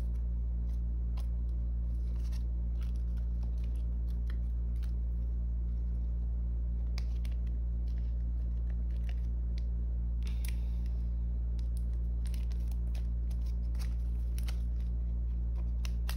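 Clear plastic photocard sleeves crinkling and scraping in short, scattered bursts as cards are handled and slid into them, a little busier about seven and ten seconds in, over a steady low hum.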